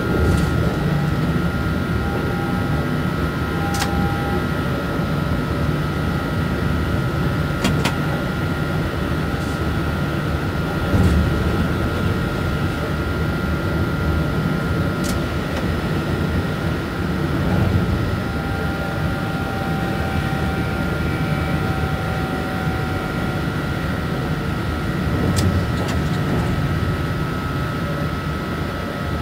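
Cab noise of an SNCF BB 27300 electric locomotive on the move: a steady low rumble from the running gear with a constant high whine over it. A few sharp clicks come through at irregular intervals.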